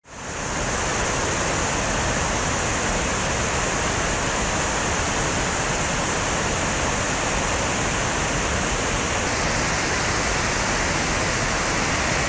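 Floodwater pouring over a wide stepped check dam: a steady, continuous rush of falling water that fades in at the start, its upper hiss changing slightly about nine seconds in.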